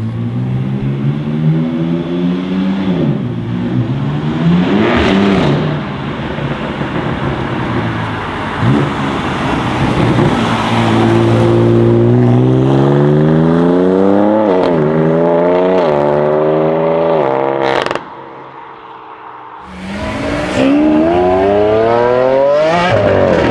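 BMW M4 F82's twin-turbo inline-six through a full Akrapovic titanium exhaust, accelerating hard. The engine note climbs again and again and drops back at each upshift. It cuts off sharply about three quarters through, then after a short quieter spell climbs once more in another hard acceleration.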